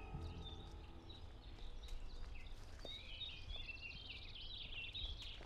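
Forest birdsong: many small birds twittering in short quick chirps, busiest from about two and a half seconds in, over a faint low rumble.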